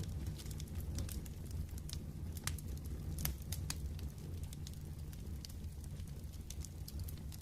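Wood fire burning in a fireplace: irregular sharp crackles and pops over a steady low rumble, the pops coming thicker in the first half.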